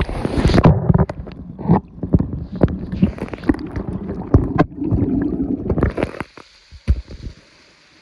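Rushing water of a woodland waterfall cascading over rock, heard right up close, with heavy rumbling buffeting and many knocks on the microphone for the first six seconds or so. The buffeting cuts out about six seconds in, leaving the steady rush of the falls at a lower level.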